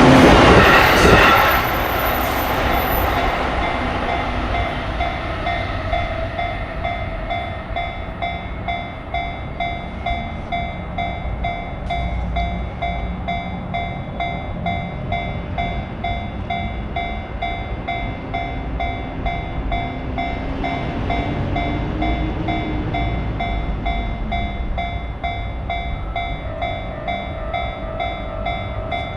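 A train passing a Japanese level crossing, loud at first and dropping away after about a second and a half. The crossing's electronic alarm bell keeps ringing in an even, repeating clang over continuing train rumble, with a low tone that rises and falls near the middle.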